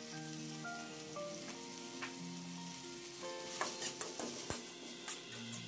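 Chopped onion, capsicum and tomato sizzling in an iron pan as a slotted metal spatula stirs them. A run of sharp scrapes and clicks of the spatula against the pan comes in the second half.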